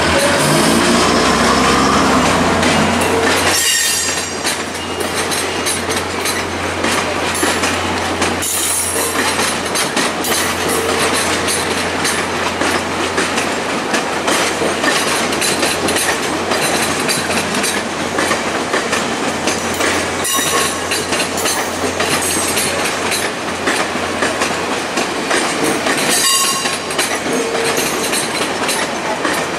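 Stainless-steel passenger cars of VIA Rail's The Canadian rolling slowly past, their steel wheels clattering over rail joints and switches. There are a few short wheel squeals along the way, and the sound is louder for the first few seconds.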